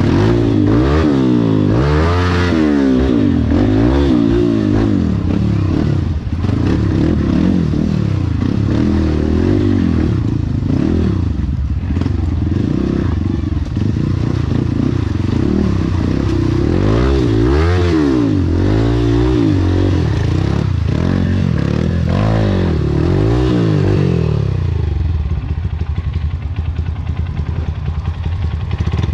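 Trail motorcycle engine revving up and down over and over as the throttle is worked, its pitch rising and falling every second or two; near the end it settles lower and steadier.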